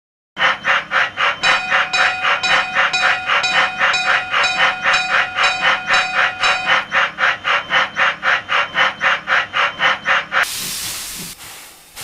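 Steam locomotive sound effect: rhythmic chuffing at about four beats a second, with a steady whistle tone held for several seconds partway through. The chuffing stops and gives way to a long hiss of steam that fades away.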